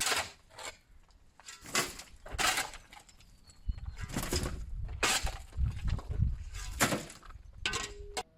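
Concrete and rock rubble being struck and broken up: about seven irregular sharp crunching impacts with low thuds between them.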